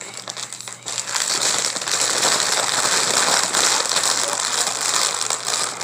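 Shiny potato chip bag being crinkled and crumpled in the hands, a dense run of sharp crackles that builds about a second in and eases off near the end.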